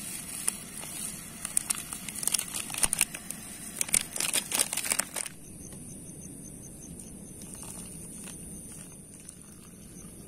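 Plastic instant-coffee sachet crinkling and rattling as it is emptied into a cup, for about five seconds. Then a steady pour of water from a pot into a plastic cup of coffee powder.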